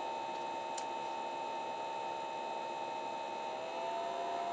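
Cooling fan of a Lucky Miner LV07 SHA256 ASIC miner running with a steady whirring whine. About three and a half seconds in, its tone shifts slightly as the automatic fan control speeds the fan up to cool the warming ASIC chip.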